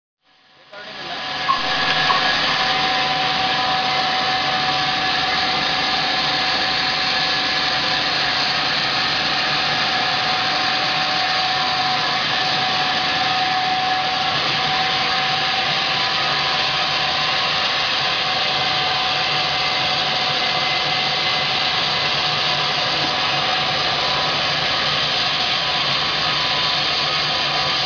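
Sawmill log band saw running and cutting as a log is fed through on its carriage: a steady hiss with a constant whine. It rises over the first two seconds, then holds level.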